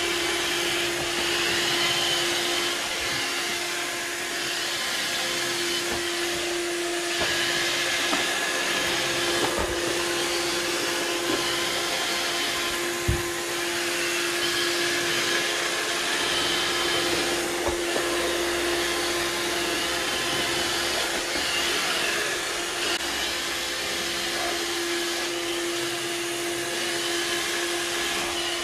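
Roomba robotic vacuum running: a steady motor hum with one constant tone and an even hiss, broken by a few brief faint knocks.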